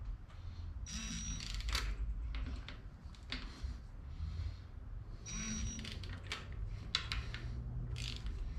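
Hand tools working the surface grinder's bolts down: scattered metallic clicks and knocks of a wrench, with a short high-pitched tone sounding twice, about a second in and again past five seconds, over a low steady hum.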